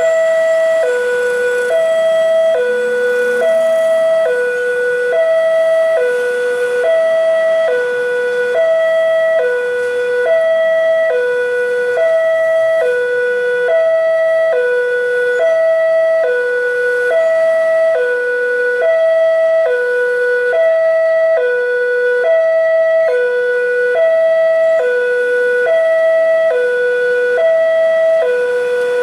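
Railway level-crossing warning alarm sounding: a loud electronic two-tone signal alternating high and low, about one high-low pair a second, repeating steadily. It signals that a train is approaching the crossing.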